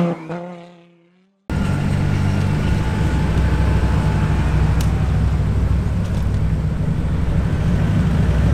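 A logo chime fades out in the first second; then, after a cut, the E30 Touring's swapped-in BMW Z3 2.8-litre straight-six idles steadily through its exhaust, with no revving.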